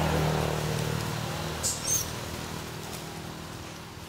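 Two short, high-pitched squeals from young macaques wrestling, close together a little under two seconds in, over the low hum of an engine that fades away.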